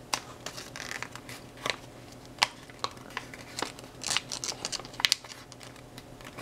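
A sheet of printer paper being folded and creased by hand: irregular crisp crackles and rustles, with a denser stretch of crinkling about four seconds in.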